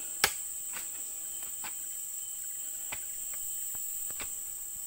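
Steady high-pitched insect chorus, cricket-like, with a few scattered sharp knocks, the loudest about a quarter of a second in.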